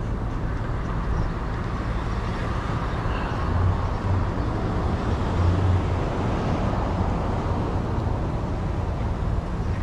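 City street traffic with a steady low rumble, swelling between about three and a half and six seconds in as a vehicle passes close by.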